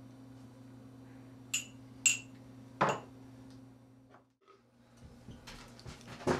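A metal teaspoon clinks twice against a glass mixing bowl with a short bright ring, then gives a duller knock, over a steady low hum. The hum cuts out for a moment about four seconds in, and a knock of the bowl being handled comes near the end.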